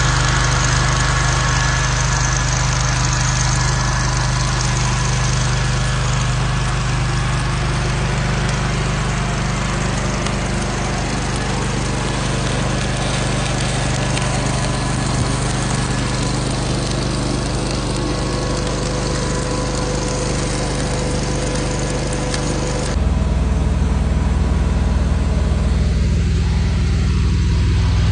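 Engine running steadily at a constant speed. About 23 seconds in the sound changes abruptly to a louder, deeper tone.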